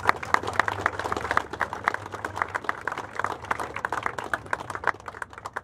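A small crowd applauding: a scattered patter of hand claps.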